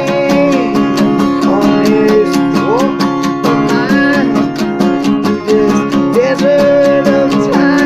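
Acoustic guitar strummed in a steady rhythm, with a wordless vocal melody gliding over it.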